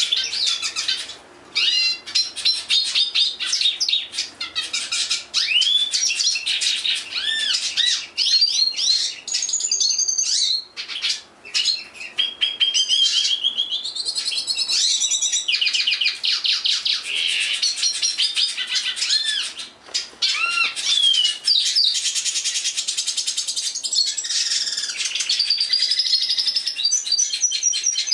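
Caged black-and-yellow songbird singing a long, varied song of high whistles, rising and falling notes and fast rattling trills, broken by a few short pauses.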